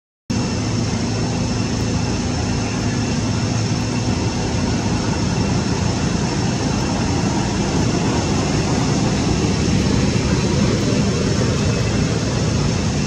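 Steady, loud rumbling hiss of outdoor background noise with a faint low hum, after a brief dropout to silence right at the start.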